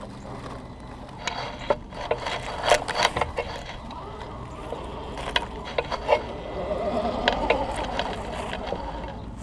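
Axial SCX10 II electric RC rock crawler driving over rocks and dry leaves: the small motor and gears whine, with scattered sharp clicks and knocks as the tires and chassis climb the stones and crush the leaves.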